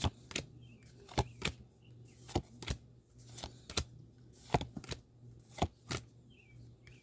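Pokémon trading cards being flipped through one at a time, each card making a short sharp snap; about a dozen snaps, coming in pairs roughly once a second.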